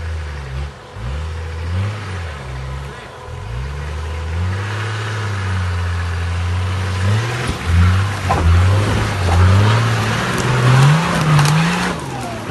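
A 4x4 off-road vehicle's engine revving up and down repeatedly as it crawls over rocks and mud, with a few knocks in the second half.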